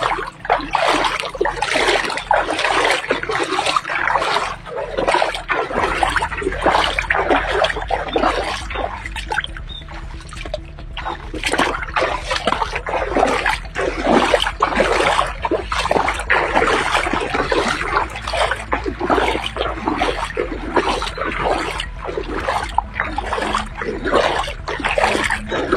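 Floodwater splashing and trickling in uneven surges. A low steady hum sits underneath from about six seconds in.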